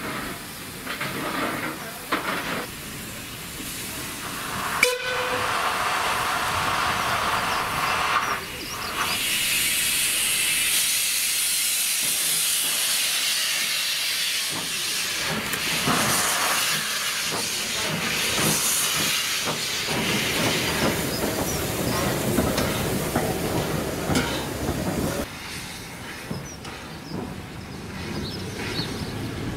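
Caledonian Class 439 0-4-4 tank steam locomotive moving slowly with steam hissing from around its cylinders, loudest in the middle stretch and easing off near the end. A sharp knock comes about five seconds in.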